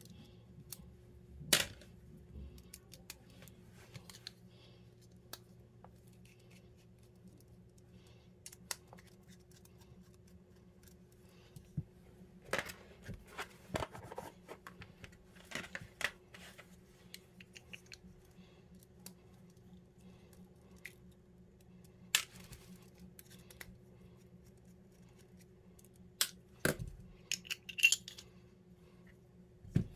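Scattered clicks, taps and knocks of a stripped stainless 1911 pistol frame, its grip panels and small screws, and a plastic parts tray being handled on a rubber bench mat. Sharper clicks come about a second and a half in and again near the end, over a faint steady hum.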